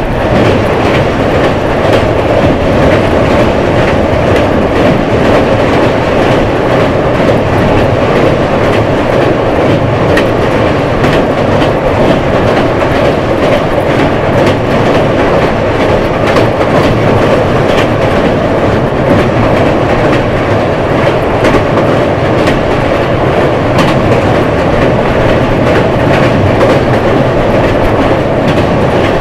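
Passenger train running at speed, heard from on board: a loud, steady rumble of wheels on rail with a clickety-clack of rail joints.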